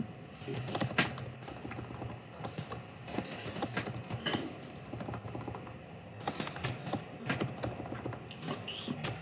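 Typing on a computer keyboard: an irregular run of key clicks, with brief pauses between bursts.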